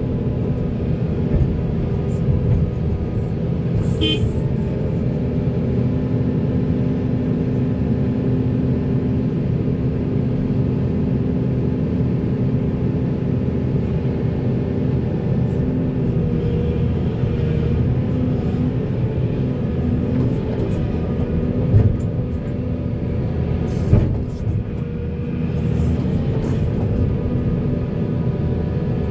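Volvo 480 excavator's diesel engine running steadily under working load, with two sharp knocks about three-quarters of the way through.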